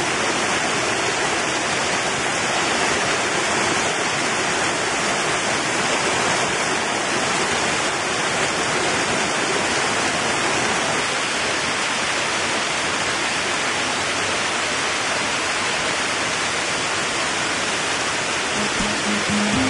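Mountain stream tumbling over rocks in small waterfalls: a steady rush of water. Music comes in near the end.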